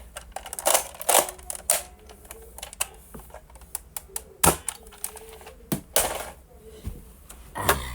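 Plastic toy gun being worked: a series of mechanical clicks and clacks, with several louder snaps as it is primed and triggered.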